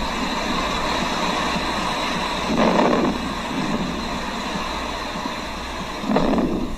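Breath sounds heard through a stethoscope: a steady rushing noise that swells twice, once with a breath about a third of the way in and again near the end.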